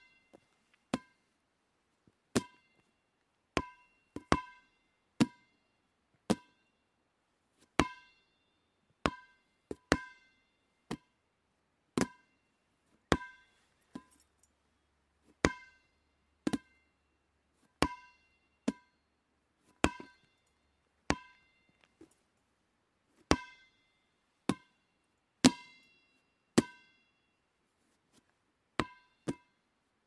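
Rubber dodgeball bouncing: single hits about once a second at uneven spacing, each a sharp smack with a short hollow ring, some hits louder than others.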